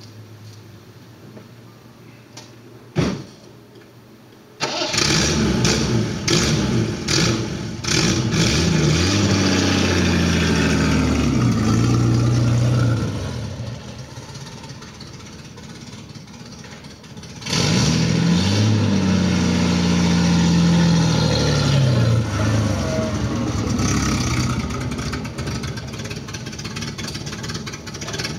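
A Vauxhall Velox's 3.3-litre straight-six engine starts about five seconds in, after a single thump, and is revved. It then pulls away, its note rising and falling as it accelerates and fading as the car drives off. About halfway through it comes back loud, its pitch climbing again, then settles to a lower steady running note as the car returns.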